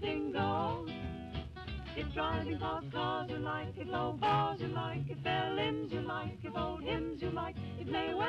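Background music: a song with a voice singing over guitar.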